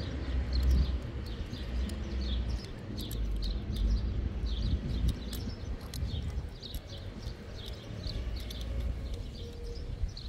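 A small bird chirping over and over, short falling chirps about two or three a second, over wind rumbling on the microphone. A few sharp clicks come from hand-tool work on a plastic water pipe.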